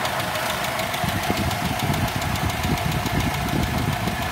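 Toyota Kijang 5K four-cylinder petrol engine idling with a fast, even ticking from the valvetrain, which the owner takes as a sign that the valve clearances need adjusting.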